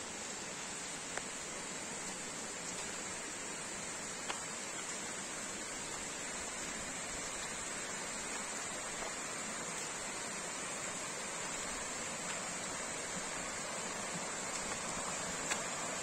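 Steady rushing of a forest stream's flowing water, with a few faint ticks.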